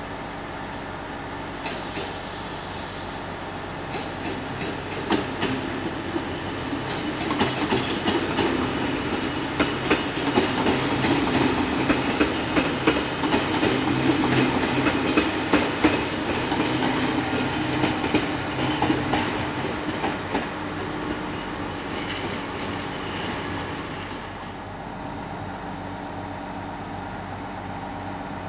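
Diesel locomotive BB 67569 and its RRR push-pull coaches rolling slowly past, wheels clicking over rail joints and points. A steady low engine hum sits under the clicks. It grows louder over the first few seconds, is loudest through the middle as the train passes, then fades away.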